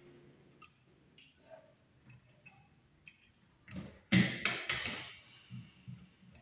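Small clicks and scrapes of a screwdriver working the screws of a wall switch set in a plastic surface-mount electrical box, with wires being pushed in. There are faint scattered ticks at first, then a louder cluster of clicks about four seconds in.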